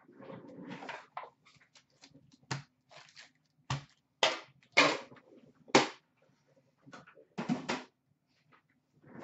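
Hockey card packs and their cardboard box being handled and set down on a glass counter: several short rustles and a few sharp knocks.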